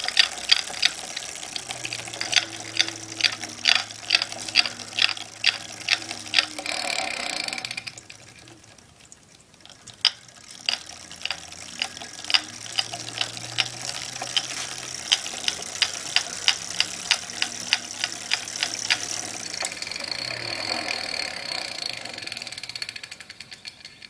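A2B Metro G2 electric bike's drivetrain clicking rhythmically while it is pedaled, about three sharp clicks a second over a low hum. The clicks pause for a couple of seconds about eight seconds in, resume, and give way near the end to a steadier whirr. The owner suspects a dry, under-lubricated 7-speed freewheel.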